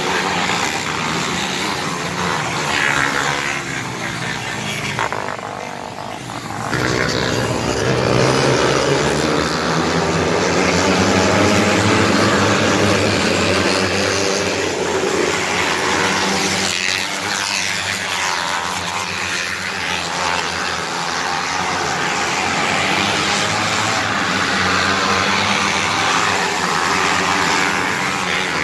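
A pack of small winged dirt-track race cars running laps, their high-revving engines rising and falling in pitch as they go past. The sound dips briefly about five seconds in, then comes back louder as the pack passes close.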